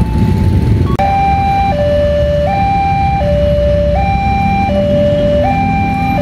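Railway level-crossing warning alarm sounding a two-tone electronic hi-lo signal, each tone held about three-quarters of a second, over a low rumble of waiting motorcycles. A steady single tone comes before it, up to about a second in.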